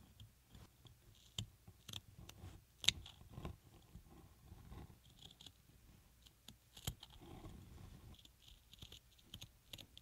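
Small scissors snipping through fabric in short, irregular cuts, heard close up as sharp little clicks. The sharpest snip comes about three seconds in.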